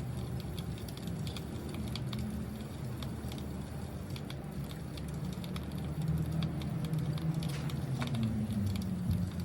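Wood fire crackling: scattered small pops over a low steady rumble.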